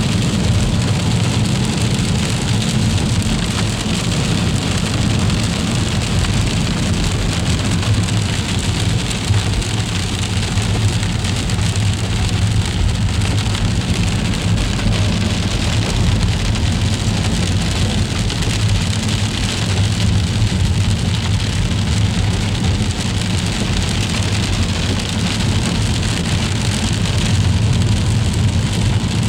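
Freezing rain falling steadily in an ice storm, an even patter over a constant low rumble.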